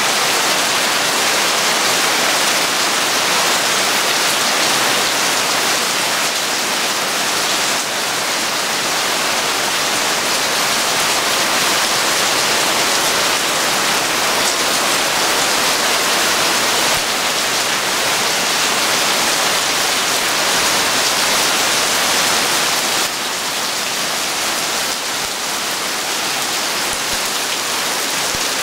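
Heavy tropical rain pouring steadily onto a pool's water surface and a wet wooden deck, a dense, even hiss of countless drops, easing slightly near the end.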